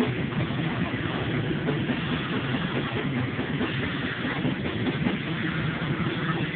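Live band playing loud, heavily distorted music, recorded on a phone so the sound blurs into a dense, steady wash with little detail above the low mids.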